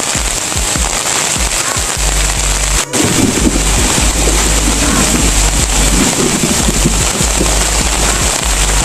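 Heavy rain pouring down, heard from under a camping tarp: a dense, steady hiss with a deep, rumbling drumming that grows heavier about two seconds in.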